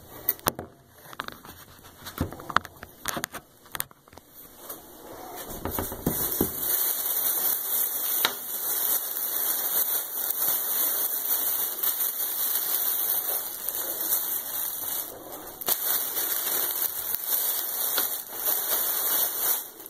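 A few scattered knocks and handling clicks, then, from about a third of the way in, a thin plastic shopping bag crinkling continuously as a plush toy is pushed into it and the bag is pressed down around it.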